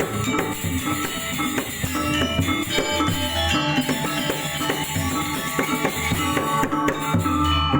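Balinese gamelan ensemble rehearsing: bronze metallophones and gongs struck in quick, dense patterns over drumming.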